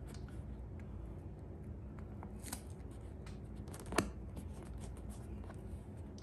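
Fingers rubbing and pressing self-adhesive leather repair tape onto a chair armrest: faint scattered scratches and small clicks, with one sharper click about four seconds in.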